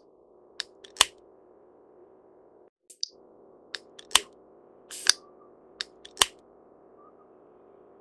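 Great spotted woodpecker pecking at dead wood: about eight sharp single taps at an irregular pace, the loudest roughly a second apart, over a faint steady background hum.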